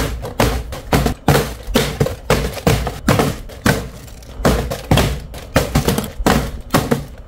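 A string of sharp percussive hits, roughly two a second and a little uneven, over a faint low hum.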